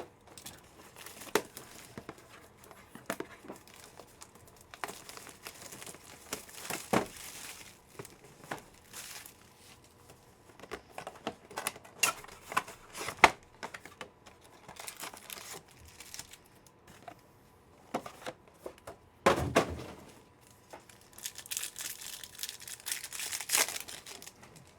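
Football card box packaging and foil card packs being torn open and crinkled, with scattered clicks and rustles of handling. The tearing is loudest about two-thirds of the way through and again near the end.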